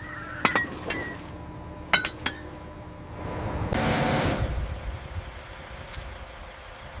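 Metal strap hardware clinking a few times as lifting straps are moved, then a loud hiss lasting about a second.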